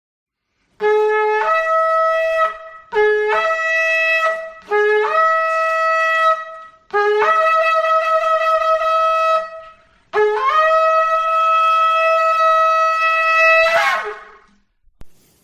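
Shofar sounded in five long blasts, each starting on a low note and leaping up to a higher one. The last blast is the longest, about four seconds, and ends with a falling break in pitch.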